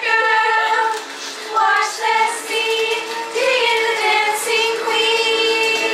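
Background music with a singing voice holding long, steady notes.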